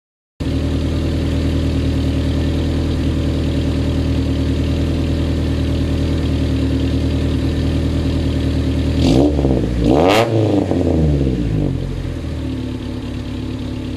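Honda Civic EG9's exhaust through a chambered muffler, idling steadily on a cold start. About nine and ten seconds in, it gives two quick throttle blips that rise and fall, then settles back to a lower, steady idle.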